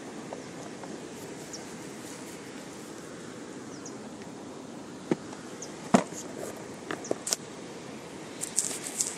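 Handling noise from a GoPro camera being adjusted by hand: a steady rubbing rustle with scattered knocks and clicks, the loudest one about six seconds in, and a quick run of sharp ticks near the end.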